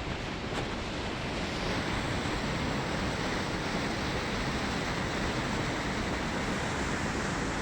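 Sablino waterfall rushing steadily, an even roar of falling water.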